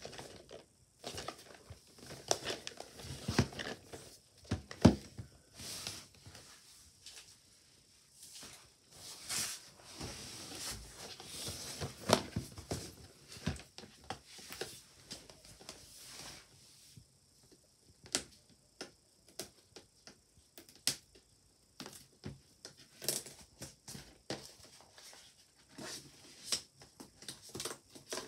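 Hands handling a plastic-wrapped cardboard box: the wrap crinkles and rustles in irregular stretches, with scattered sharp taps and knocks as the box is turned and set down on the table.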